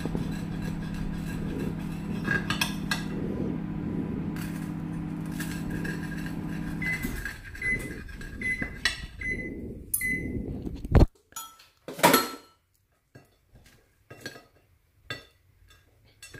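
Microwave oven running with a steady hum that stops about seven seconds in, followed by about five short, high beeps signalling the end of the heating cycle. Then two sharp knocks and dishes clinking.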